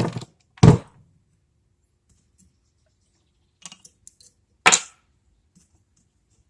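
Metal parts of an IHC engine mixer being handled: two sharp knocks, about a second in and near the end, with a few faint clicks just before the second.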